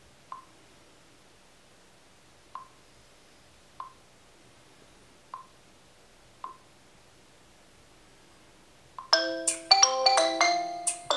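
Five soft, short ticks spaced a second or so apart, then about nine seconds in a Xiaomi Mi5 smartphone's loudspeaker starts playing a preset ringtone, a loud melody of quick bright notes.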